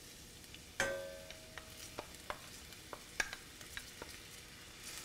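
Sliced onion stirred with a wooden spatula into garlic and olive oil in a stainless steel frying pan, over a faint sizzle. About a second in there is a knock that rings briefly, then about a dozen light taps and scrapes of the spatula against the pan.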